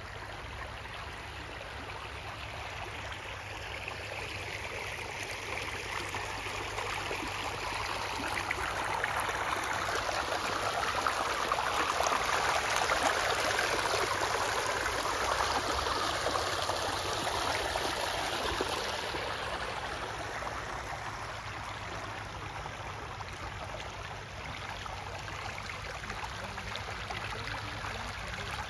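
Shallow water babbling and splashing over rocks in a gravel-lined artificial park stream. The sound swells in the middle as the small rocky riffle is passed close up, then eases off again.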